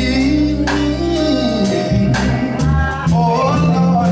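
Live gospel quartet music: the band playing with steady bass notes and regular percussion hits, with a voice singing over it.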